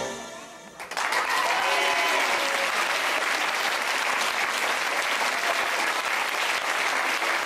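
The salsa music ends at the very start, and after a short lull a theatre audience breaks into steady applause about a second in, with some cheering voices mixed in.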